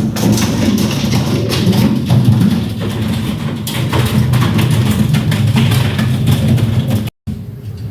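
Background music with a busy percussive beat and strong bass. It cuts off abruptly about seven seconds in, at an edit.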